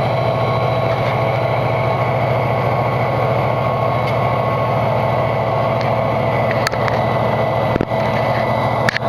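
EMD GP39-2 diesel locomotive's turbocharged 12-cylinder engine working hard as it hauls a heavy freight train: a steady deep drone with a high steady tone above it. A few sharp clicks near the end.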